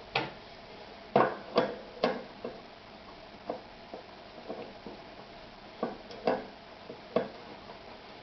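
Irregular clicks and light knocks of small metal sewing-machine parts being handled, about a dozen in all, bunched in the first two seconds and again around six to seven seconds in; the machine's motor is not running.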